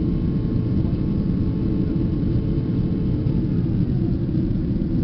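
Steady low rumble of jet engine and airflow noise inside an airliner's cabin in flight. A faint steady hum fades out about three and a half seconds in.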